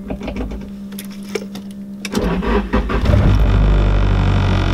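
Nissan 240SX engine being cranked by the starter for about two seconds, then catching, rising in level for about a second and settling into a steady run.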